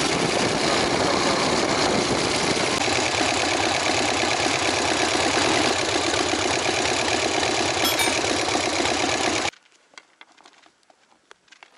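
Harley-Davidson Sportster's V-twin engine running as the motorcycle rides along, with wind rushing over the microphone. About nine and a half seconds in it cuts off suddenly to near silence with a few faint ticks.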